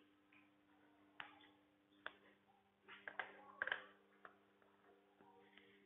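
Near silence: room tone with a faint steady hum and a few soft clicks and knocks, most of them about three to four seconds in.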